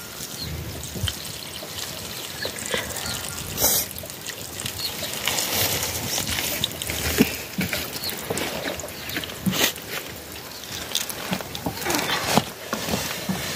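Water trickling and dribbling off the edge of a tilted steel plate of rice as it is drained, with scattered small clicks and one sharper click about four seconds in.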